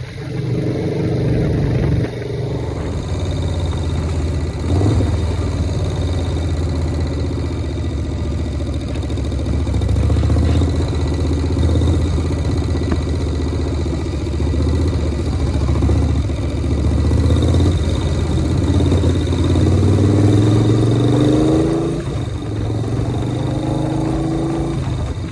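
1983 Harley-Davidson Shovelhead chopper's air-cooled V-twin running under way. The engine note climbs as it accelerates, with brief drops at gear changes about two seconds in and again near the end.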